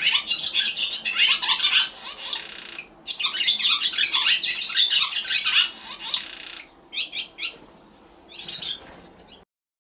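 Barn swallows twittering: two long runs of rapid high chirps, each broken by a short harsh, buzzy stretch, then a few shorter bursts of calls near the end.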